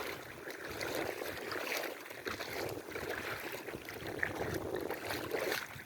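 Water lapping and trickling, with small soft splashes.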